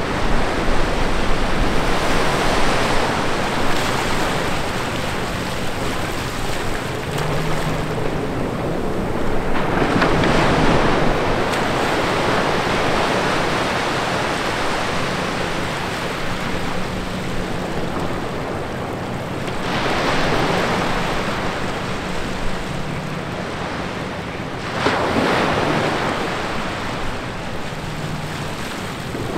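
Small ocean waves breaking just offshore and washing up over the sand around two rocks: a steady rush of surf that swells louder several times as each wave comes in.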